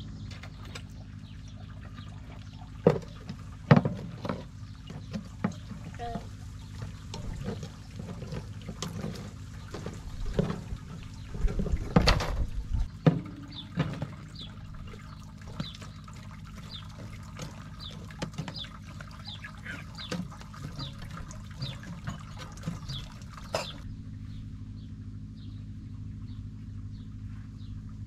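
Knife chopping meat on a wooden cutting board: irregular knocks and wet handling sounds, loudest about twelve seconds in, with short high bird chirps repeating in the background during the second half.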